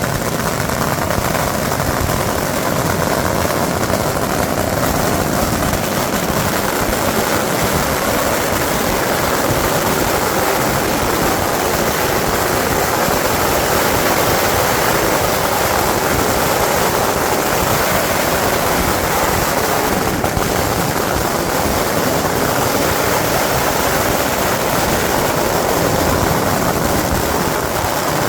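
Strings of firecrackers going off without a break, a dense crackle that merges into one steady, loud noise.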